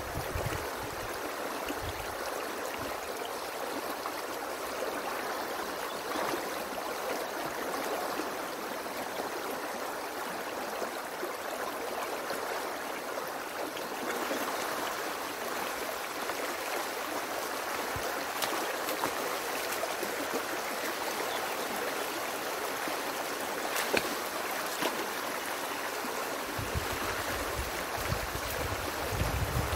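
Stream water rushing steadily through a breach in a beaver dam, with a few faint clicks of sticks. A low rumble comes in near the end.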